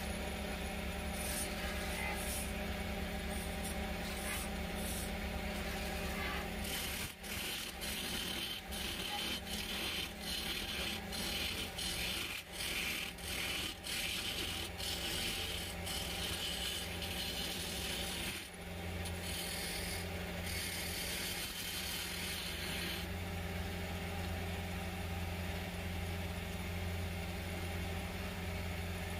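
Wood-turning lathe running with a steady motor hum while a tool scrapes against the spinning teak. Through the middle the scraping comes in short regular strokes, and near the end it eases off, leaving mostly the lathe's hum.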